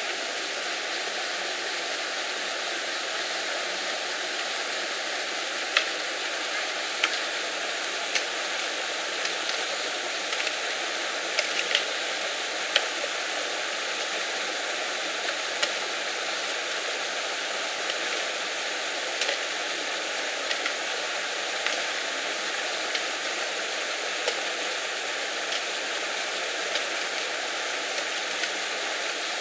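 Steady rushing of a nearby stream or waterfall, with a dozen or so sharp clicks and knocks scattered through it.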